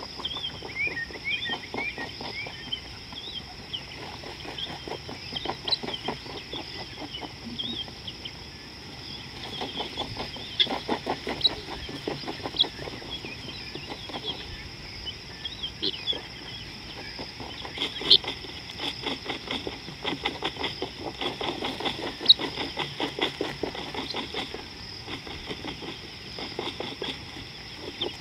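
Bush ambience: small birds chirping over a steady high-pitched drone, with a dense, uneven patter of soft clicks and crackles throughout. A few sharper, louder ticks come in the second half.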